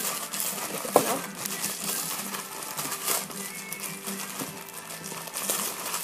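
Plastic packaging crinkling and rustling as items are handled, with a sharp crackle about a second in, over music playing in the background.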